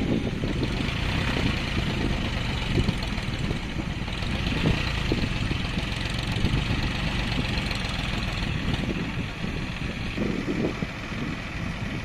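Diesel engine of a heavy earthmoving machine running steadily, a deep rumble with a few brief louder knocks.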